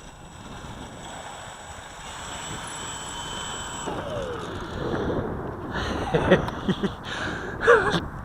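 Electric RC plane's motor and propeller whining steadily, then cut about four seconds in, the pitch falling away as the plane comes in to land. Wind noise on the microphone throughout, gusting louder near the end.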